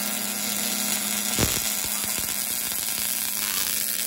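Wire-feed welder arc burning steadily on steel, a continuous crackling sizzle over a low hum, with one sharp pop about one and a half seconds in.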